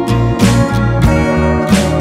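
Background music with sustained bass notes and a regular beat.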